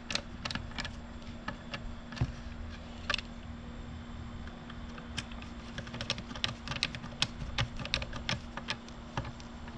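Irregular light clicks and ticks of a Phillips screwdriver tightening the screws that hold a replacement motherboard in place, over a steady low hum.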